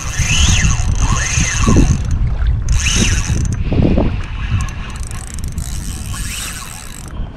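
Spinning fishing reel being cranked in repeated turns, its gears whirring, as a hooked fish is reeled in; wind buffets the microphone.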